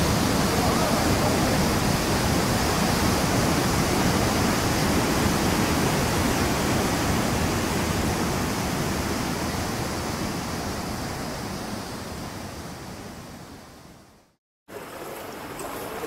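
Water rushing over boulders in a rocky stream cascade, a steady rush that fades out between about nine and fourteen seconds in. After a brief silence, a quieter flow of a broad, shallow river begins.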